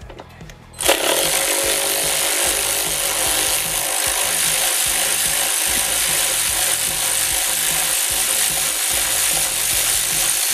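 Cordless electric ratchet running steadily, backing out a throttle-body mounting bolt; the whirr starts suddenly about a second in and does not let up.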